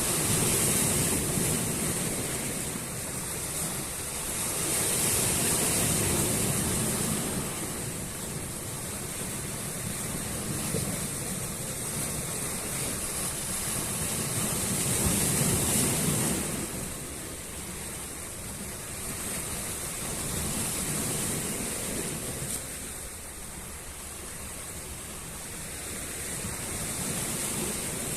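Sea waves breaking on a shore, the surf swelling and fading in slow surges every several seconds.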